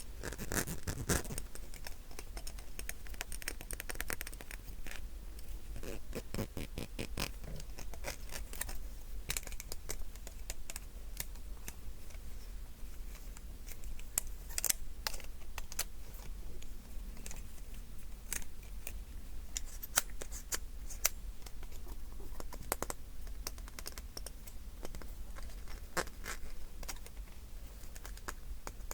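Close-miked clicks, taps and scratches made on a small everyday object, irregular, with quick runs of rapid clicking about a second in and again around six seconds in.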